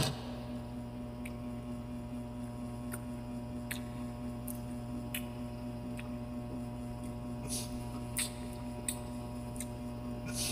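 Steady electrical hum, with faint scattered wet clicks and a couple of soft squishy bursts near the end from chewing and pulling apart juicy ripe pineapple pieces.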